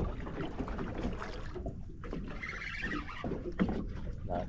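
Small boat at sea: a steady low rumble with water sloshing against the hull and a few knocks.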